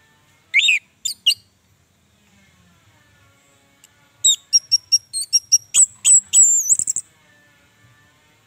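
Orange-headed thrush singing: a short phrase of three sharp high notes just after the start, then, a little past four seconds in, a fast run of sharp chirps and high whistled notes that stops about seven seconds in.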